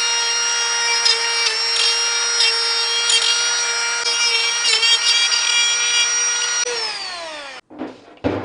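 Compact cordless grinder grinding a fabricated steel motor-mount plate to clean it up before welding. It runs with a steady high whine that dips slightly in pitch several times as the disc bites into the metal, then winds down with a falling pitch about seven seconds in.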